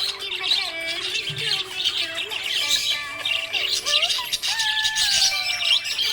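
Budgerigar chirping and warbling in quick, continuous bursts of high chirps, over background music with a sustained melody.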